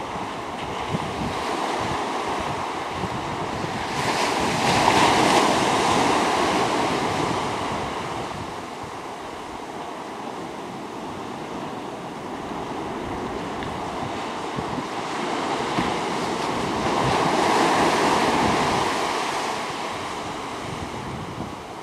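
Sea surf breaking and washing on rocks and shore, swelling loudly twice as waves come in, with wind rumbling on the microphone.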